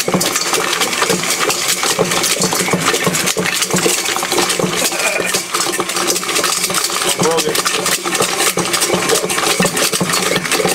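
KitchenAid stand mixer running steadily, its beater churning a calculator, pencils and paper in a stainless steel bowl, with a continuous clatter of hard plastic rattling and scraping against the bowl.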